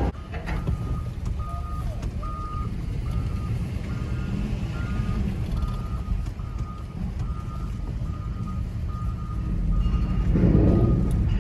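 A vehicle's reversing alarm sounding a steady series of short, even beeps over a low engine rumble. The rumble grows louder near the end.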